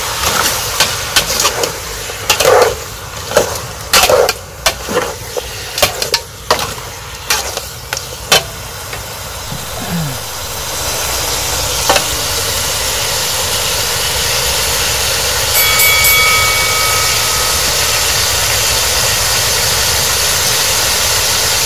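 A metal spatula knocking and scraping against a large frying pan during stir-frying, many sharp clanks for about ten seconds. After that comes a steady sizzle of fat in the hot pan.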